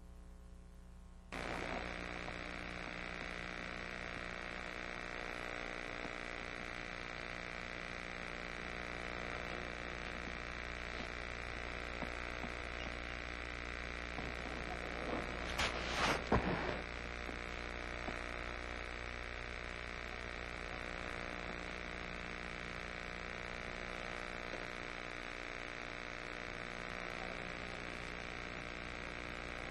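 A steady electrical hum made of many fixed tones, switching on abruptly just over a second in, with a brief rustling knock about halfway through.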